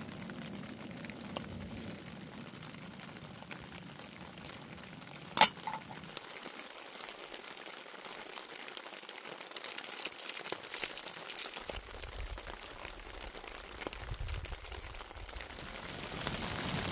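Pot heating on a canister camp gas stove: a steady faint hiss, one sharp metal clink about five seconds in, then lighter clinks and scrapes as drink powder is poured in and stirred with a spoon.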